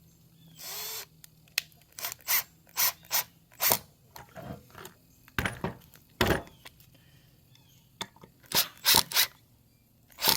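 A series of short, irregular scrapes and knocks, with one longer scrape about half a second in: wood pieces and tools being handled on a workbench.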